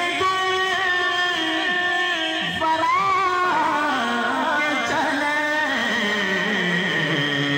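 A man singing into a microphone in a devotional, qawwali-style manner, drawing out long held notes that slide and waver, with steady held tones of accompaniment underneath.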